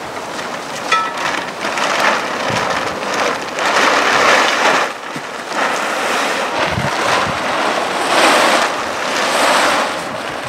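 A plastic tarp rustling and flapping in gusty wind, in repeated swells every second or two, with wind buffeting the microphone.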